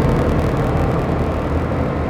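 Electronic noise drone from a Make Noise Strega and Meng Qi Wingie synth setup layered with looped drones: a dense, rumbling hiss with a few steady held tones, slowly getting quieter.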